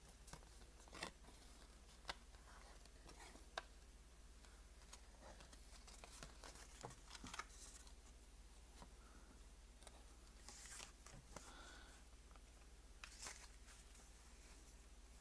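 Faint rustling and light taps of cardstock pieces being handled and wrapped with twine, with scattered soft clicks.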